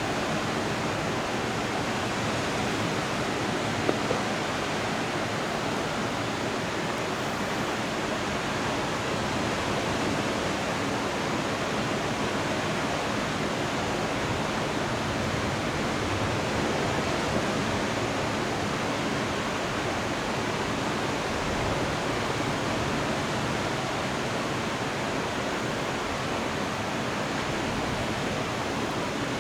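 Steady, even downpour of heavy rain during a thunderstorm, with a faint click about four seconds in.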